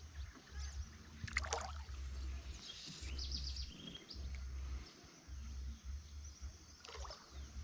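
Faint outdoor ambience: a low rumble that comes and goes, with a few faint bird chirps.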